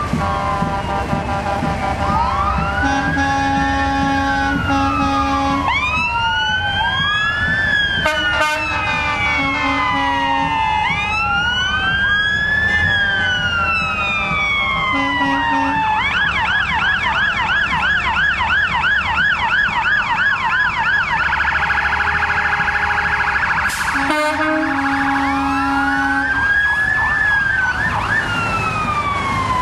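Several emergency-vehicle sirens sounding together, wailing in slow overlapping rising and falling sweeps. Past the middle, one switches for about five seconds to a fast yelp, then holds a high tone before the wail comes back. Short low horn blasts sound between the sweeps.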